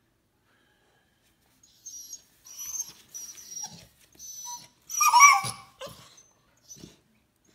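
Puppy vocalizing: a run of thin, high-pitched whines, then about five seconds in a louder grumbling, complaining whine that falls in pitch, followed by a few short whimpers.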